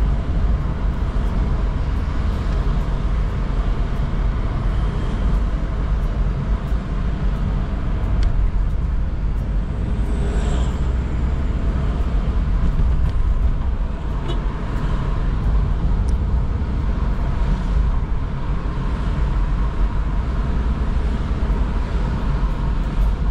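Steady low rumble of engine and tyre noise heard inside a Toyota car's cabin as it drives on a wet road in light drizzle. Faint scattered ticks run through it, and a brief high sound comes about ten seconds in.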